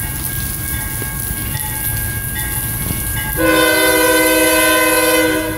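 A steady rush of heavy rain, then about three and a half seconds in the approaching GE Dash 8-40CW locomotive's air horn sounds one loud, steady chord for about two seconds.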